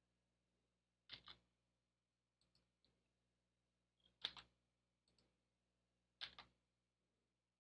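Faint clicks of a computer keyboard and mouse, in short clusters of two or three every second or so, over a low steady electrical hum.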